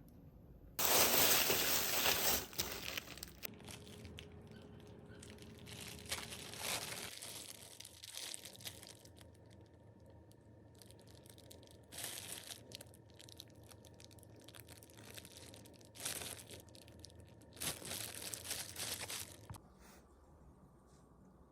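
Plastic packaging crinkling and tearing in several bursts, the longest and loudest about a second in, with shorter rustles later on.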